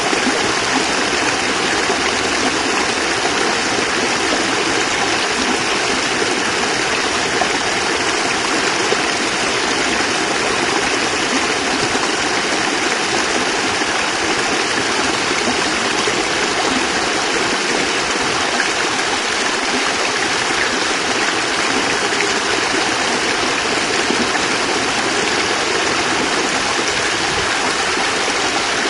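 Small cascade of water splashing and rushing steadily over rocks, a constant even sound with no breaks.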